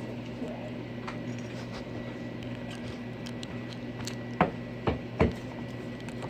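Small objects handled on a tabletop: scattered light clicks and taps, with three louder knocks a little past the middle, over a steady low hum.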